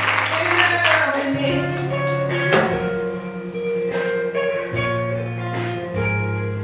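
Guitar-led backing music with held low notes and plucked notes. Audience applause fades out in the first second or so.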